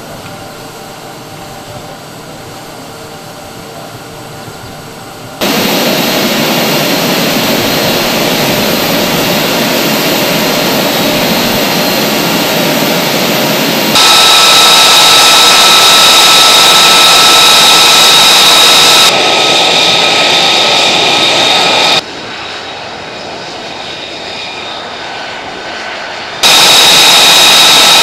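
F-35 Lightning II's F135 jet engine running, heard in several edited shots that cut abruptly between quieter and louder stretches, the loudest ones carrying a steady high whine over the rush of exhaust.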